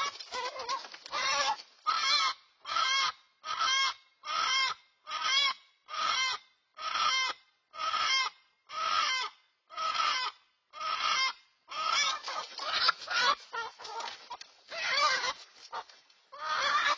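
A chicken squawking in loud, repeated distress calls, a little more than one a second, under attack by a raccoon; in the last few seconds the calls come less evenly and run together.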